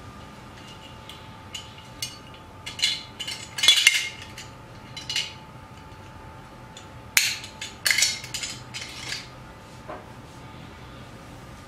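Stainless steel parts of a rotary grater (crank, drum and housing) clinking and clattering as they are taken apart and fitted back together. The metal knocks come in scattered clusters, loudest a little under four seconds in and again around seven to nine seconds in.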